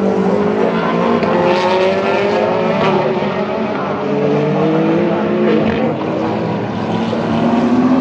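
Race car engines accelerating, several at once, their pitch rising in long overlapping sweeps.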